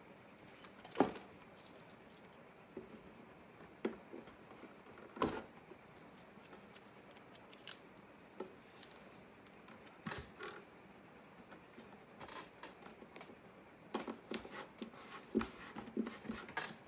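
Strips of blue masking tape being torn and pressed down along a mandolin's edge to hold new binding while the glue sets: scattered short crackles and clicks, coming thicker near the end.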